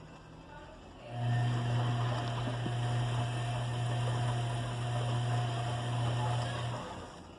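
Bosch front-loading washing machine washing a full load: a steady low motor hum with a rushing noise over it starts about a second in and cuts off near the end, as the drum turns one way and then pauses.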